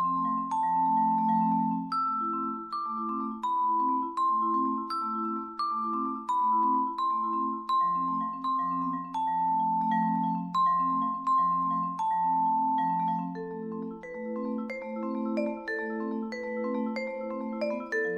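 Solo vibraphone played with mallets: struck notes ring and sustain over a low repeated accompaniment, with a melody in the middle range. In the last few seconds a line of notes climbs steadily upward in pitch.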